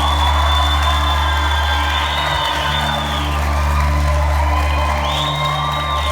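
Music: a deep, steady drone underneath high tones that slide up, hold and fall away.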